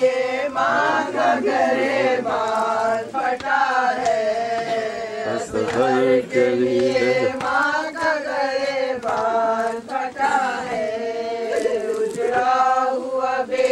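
Male voices chanting an Urdu noha, a Muharram lament, together in a slow sung melody.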